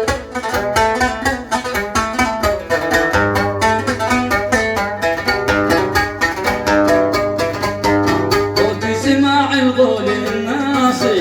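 Instrumental break in an Arabic song: a fast melody on a plucked string instrument, with a held bass note entering about three seconds in.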